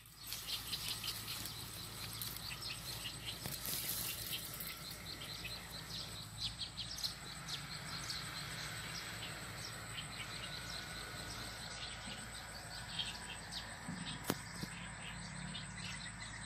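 Outdoor ambience in a cattail field: many short, high chirps and ticks, thick for the first half and thinning later, over a faint steady low hum, with a single sharp click near the end.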